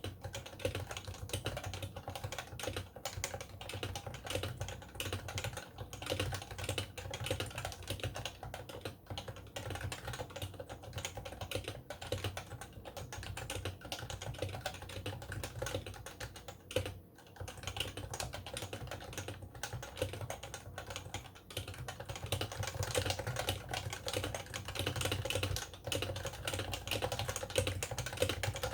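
Continuous typing on an HHKB Pro 2 keyboard with Topre electrostatic-capacitive switches, two years old: rapid key strokes with only a brief pause past the halfway point. The sound is slightly distorted by background-noise removal.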